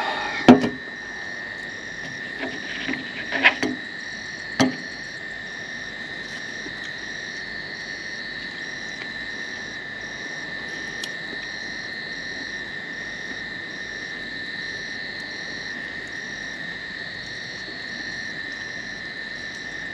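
Steady night chorus of frogs and insects: a constant high trill with a higher chirp pulsing about once a second. About half a second in, a sharp clank as a drink can is set down on a metal table, then a few lighter knocks over the next few seconds.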